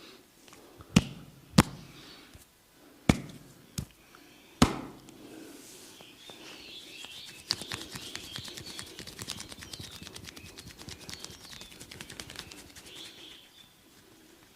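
Hands working a head massage: five sharp slaps in the first five seconds, then about seven seconds of fast, dense tapping and rubbing on the head.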